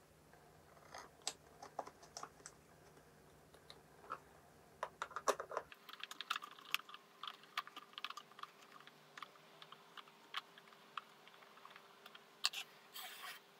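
Faint light clicks and taps of a metal bolt being handled and set into a wooden board, then a denser run of small clicks from about six seconds in as a hand driver turns the bolt into a threaded insert, the tool clicking in the bolt head. A short scraping rasp comes near the end.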